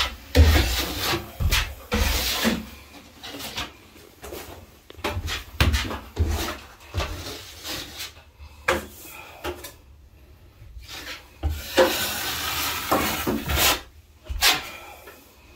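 Hand-held drywall blade scraping and smoothing gypsum setting compound along a ceiling joint, in irregular short strokes with a longer scrape near the end.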